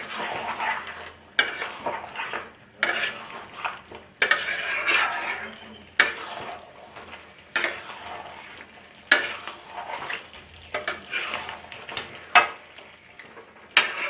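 A flat steel spatula stirring chicken and potatoes in thick masala gravy in a metal kadai. The spatula clinks sharply against the pan about every one and a half seconds, with wet scraping and sizzling of the gravy between strokes.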